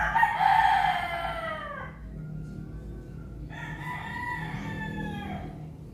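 A rooster crowing twice. The first crow is loud and about two seconds long, dropping in pitch at the end. A fainter second crow begins about three and a half seconds in.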